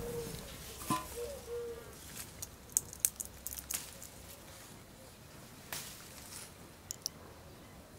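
Scattered sharp clicks and taps from cooking work, with a bird's low, steady call in the first two seconds.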